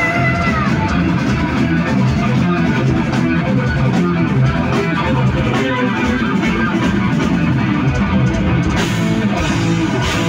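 Heavy metal band playing live: two distorted electric guitars, bass guitar and drum kit in an instrumental passage. A singer's high held note with vibrato ends within the first second.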